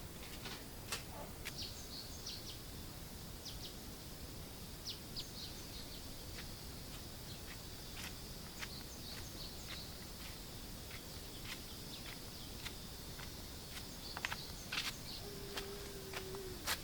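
Rural outdoor ambience: a steady high insect drone with many short bird chirps over it, scattered sharp clicks, and a brief low steady tone near the end.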